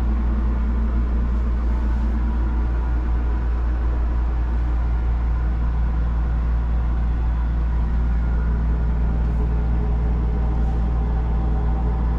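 Steady low mechanical hum and rumble inside a Ferris wheel gondola, with several faint steady tones over it and no change through the ride.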